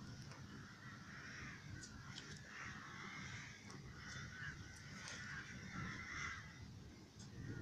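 A flock of crows cawing over and over, faint.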